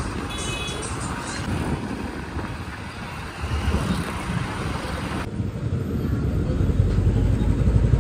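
Busy street noise with vehicles running and the deep bass of a large outdoor DJ sound system. The bass grows louder over the second half.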